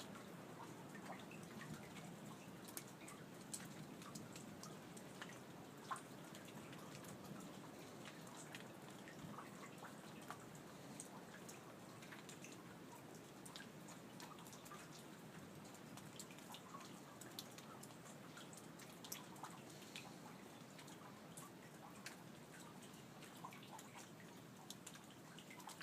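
Rain dripping during a light thunderstorm: faint, irregular drops and drips ticking at random over a soft, steady low hush, with no thunder.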